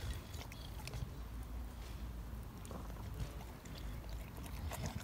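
A dog, an American Bully, licks its lips and smacks after a bite, with a few faint wet clicks over a low steady rumble.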